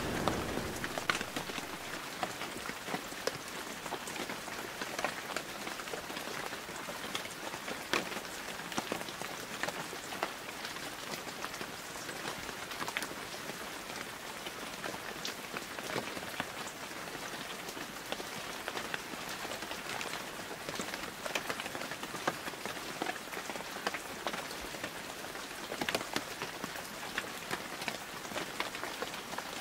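Steady rain falling, an even hiss dotted with sharp ticks of individual drops striking a surface. A low rumble of thunder dies away in the first moment.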